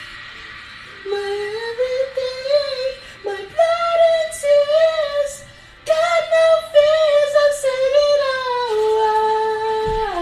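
A woman singing a slow melody alone, one voice gliding between notes with little or no backing music, and holding one long note near the end.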